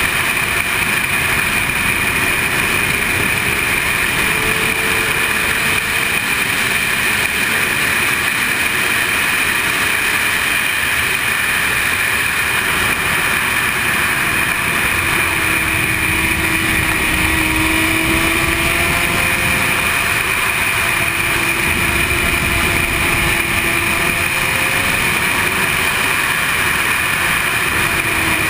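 Sport motorcycle ridden at speed, heard from a helmet-mounted camera: a steady, loud rush of wind noise with the engine underneath, its note shifting slightly up and down.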